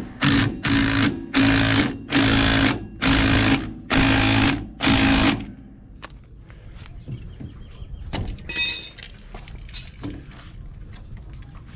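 Pneumatic impact wrench run in seven short, even bursts over about five seconds, a hissing rattle with a steady hum in each burst. A brief metal clink follows a few seconds later.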